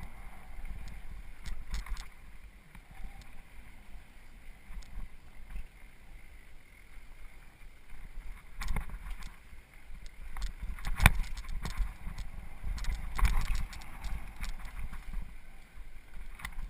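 Mountain bike riding over a rough trail: a low wind rumble on the microphone, with scattered clicks and rattles from the bike and a sharp knock about eleven seconds in.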